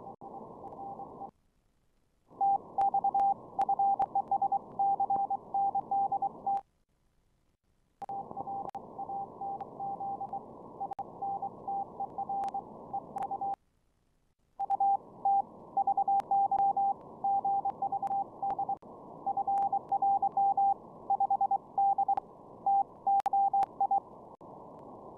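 Morse code (CW) on the 15-metre amateur band heard through an SDR receiver: a single tone keyed on and off in dots and dashes over narrow-filtered band hiss. The audio cuts out briefly three times.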